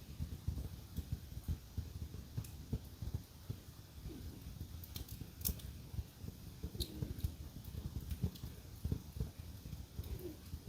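Wood fire crackling in a fireplace: a dense low crackle with scattered sharp snaps and pops. A French bulldog's faint snoring breaths come every few seconds.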